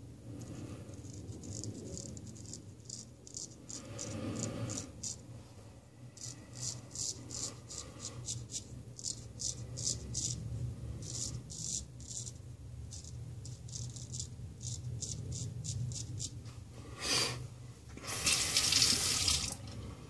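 Ralf Aust 5/8 round-point straight razor scraping through lathered stubble on the neck in many short strokes. Near the end a tap runs briefly, loud, for about a second and a half.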